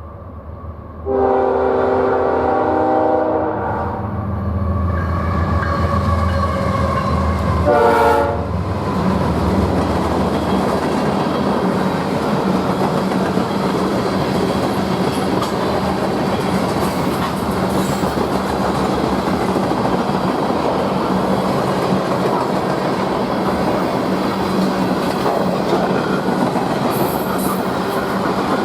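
Diesel locomotive air horn sounding a long chord about a second in and a short blast near eight seconds, over the locomotive's engine rumble. Then the train's cars roll past with steady wheel-on-rail noise.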